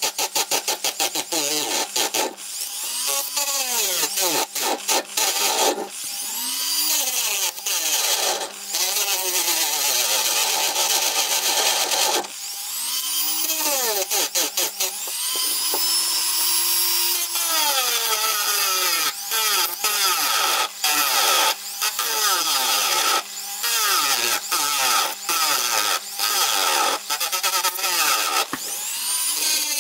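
Dremel rotary tool with a cutoff disc cutting into the metal bushing of a circuit breaker. The motor's whine drops in pitch as the disc bites and climbs back as it is eased off, with the grinding breaking off briefly many times.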